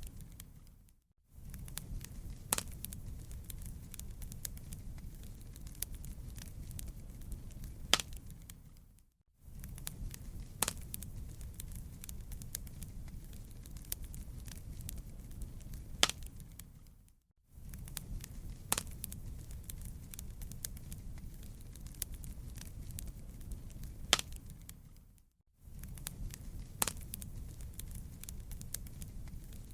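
Wood fire crackling: a steady low rumble of burning with many small sharp snaps and a few louder pops. The sound fades out briefly and comes back about every eight seconds.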